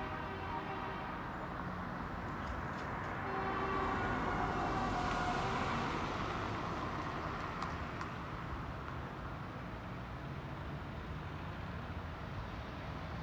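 Tractor and car engines running along the road, with a horn tooting at the start and again about four seconds in.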